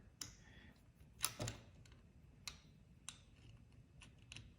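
Scattered faint clicks and taps as an Allen wrench and the scooter's wheel axle hardware are handled, the loudest pair about a second and a half in.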